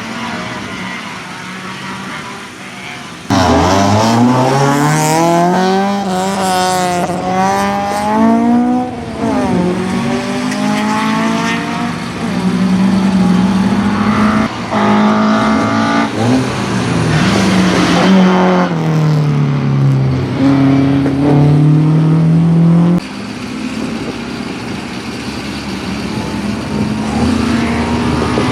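Racing car engine accelerating hard through the gears, its pitch climbing and then dropping at each gear change. The sound jumps suddenly louder about three seconds in and falls off suddenly again later on.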